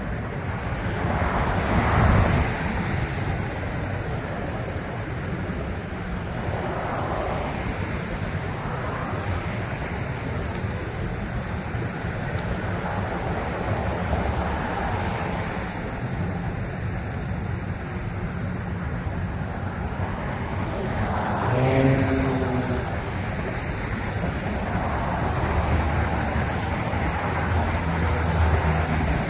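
Steady road traffic noise from passing cars, with louder vehicles going by about 2 seconds in and again about 22 seconds in, the second with a brief pitched engine tone.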